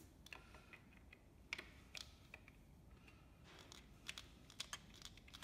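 Faint, scattered small clicks and taps of a screwdriver working the screws out of a metal battery bracket, irregular and a little busier near the end.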